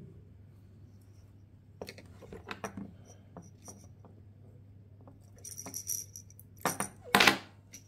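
Small handling clicks and rustles of nylon fishing line, then a metallic jingle and two sharp clicks near the end as a nail clipper trims the line at the float, over a low steady hum.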